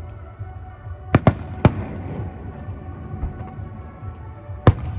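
Aerial firework shells bursting: three sharp bangs in quick succession about a second in and another near the end, over a continuous low rumble from the display.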